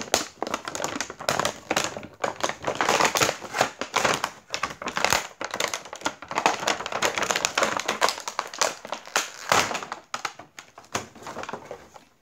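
Clear plastic toy packaging crinkling and crackling as it is handled and pulled away from a toy egg, a dense, irregular run of crackles.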